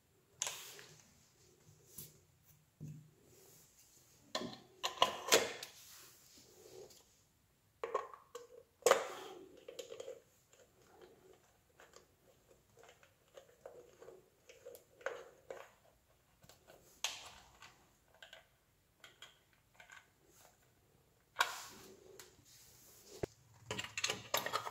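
Small hand screwdriver turning the centre screw of a wall power socket's plastic cover plate, with irregular clicks, scrapes and knocks of plastic being handled against the wall. Around 21 seconds in there is a longer stretch of rattling and scraping.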